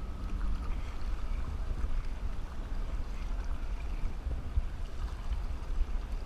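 A kayak being paddled across choppy water: paddle strokes and water splashing and lapping, under a steady, fluctuating low rumble of wind on the microphone.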